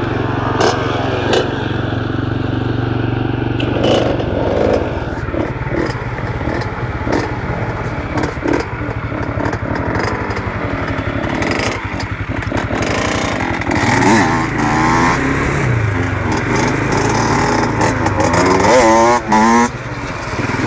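Small off-road vehicle engine running steadily, revving up and back down a few times in the second half, with scattered clicks and knocks of the phone being handled.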